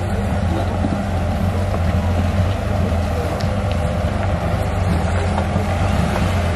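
Jeep Wrangler off-road vehicle's engine running steadily at low speed, a constant low drone.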